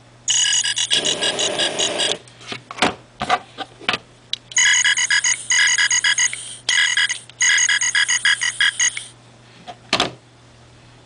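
Electronic sound chip of a frog-shaped butane torch lighter playing a buzzy, rapidly pulsed croaking sound: once for about two seconds, then again in three bursts over about four and a half seconds. A few sharp clicks come between and after the bursts.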